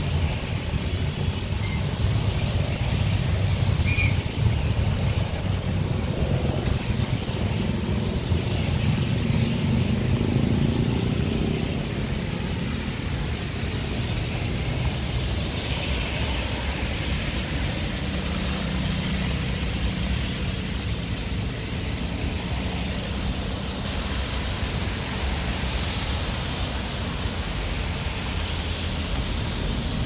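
Steady city traffic on a rain-wet road: cars, motorbikes and a bus passing, engines rumbling low with tyres hissing on the wet asphalt, swelling and fading as each goes by.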